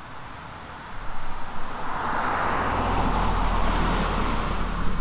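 A car driving past on the street, its tyre and road noise swelling to a peak mid-way and easing off near the end, with a low rumble underneath from about a second in.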